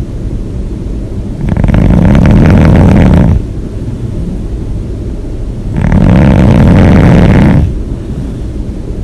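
A person snoring: two loud, fluttering snores about four seconds apart, each lasting nearly two seconds, with a quieter low rumble between them.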